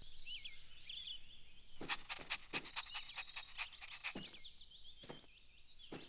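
Faint birdsong ambience of many quick chirps, with a handful of short, soft taps scattered through the middle.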